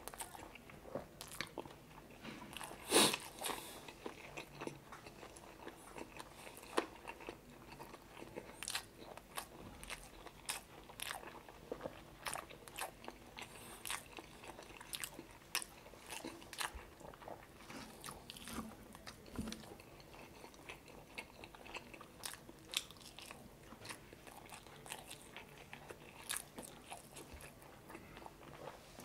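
A man chewing mouthfuls of rice and chicken adobo, with irregular wet smacks and clicks of the mouth, the loudest about three seconds in.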